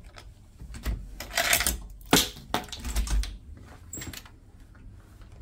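An irregular run of clicks, knocks and rustling, like small objects being handled and set down close to the microphone. The sharpest knock comes about two seconds in.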